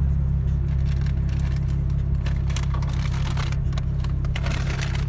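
Car running, heard from inside: a steady low rumble, with scattered light clicks and crackles from about halfway.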